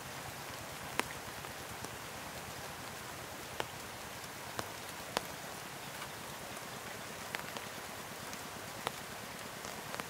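Steady rain falling, with a few louder single drops tapping at irregular moments, the sharpest about a second in.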